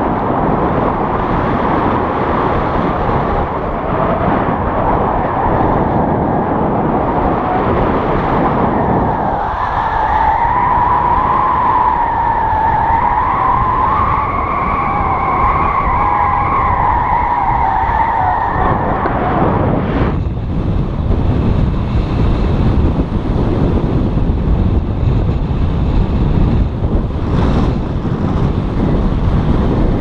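Strong wind rushing over an action camera's microphone in flight under a tandem paraglider. About a third of the way in, a wavering whistling tone joins it for some ten seconds, and a sharp click comes about two-thirds through.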